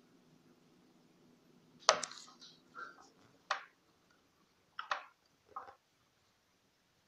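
A handful of short, sharp knocks and clatters, as of hard objects being handled and set down, over a faint low hum that fades out partway through.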